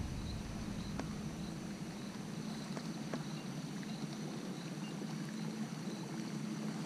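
Quiet water sounds around a canoe on a river, over a steady low hum, with a couple of faint clicks.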